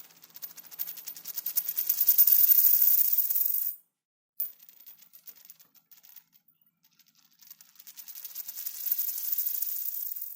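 A coin spinning on a hard surface, a rapid metallic rattle that swells louder and then cuts off sharply about three and a half seconds in. A second spin starts about a second later and swells again toward the end.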